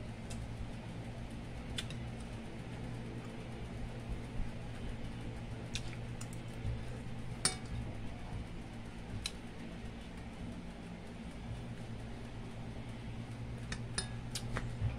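A metal spoon scraping and tapping on a plate as rice and fish are eaten, in a few scattered clicks, the sharpest about halfway through and a small cluster near the end. A steady low hum, like a fan, runs underneath.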